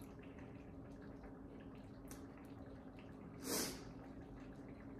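Quiet room tone with a faint steady hum and a few soft clicks. A little past the middle comes one short breath out through the nose while chewing a bite of cake.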